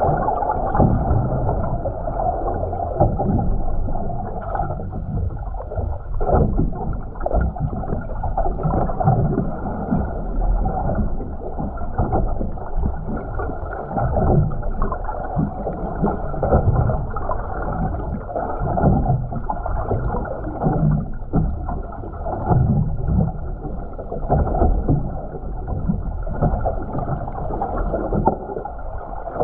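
Muffled rush and slosh of water heard through a camera held underwater in a waterproof housing, surging irregularly, with no clear sound above a low, dull range.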